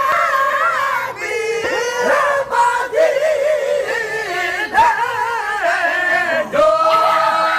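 Sindhi molood, a devotional song, sung by male voices: an ornamented melody that wavers up and down in pitch, settling into a long held note about six and a half seconds in.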